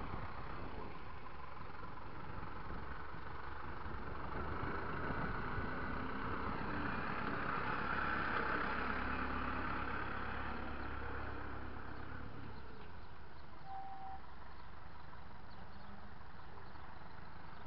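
Tractor diesel engine running steadily, swelling slightly about halfway through.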